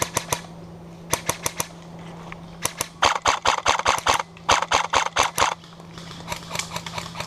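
Airsoft electric guns firing: a few single shots and short strings, then two rapid full-auto bursts of about a second each in the middle, followed by scattered shots again.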